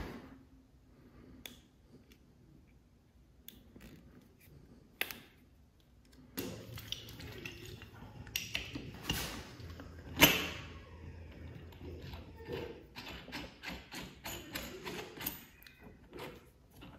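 Metal tools and parts clinking and tapping as a bearing separator and puller are fitted onto a DeWalt DW717 miter saw's motor armature to pull its bearing. It is a scatter of small clicks and knocks, with one sharp metal knock about ten seconds in.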